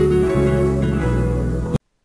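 Background music with plucked strings over a low bass line that steps from note to note; it cuts off abruptly near the end, leaving silence.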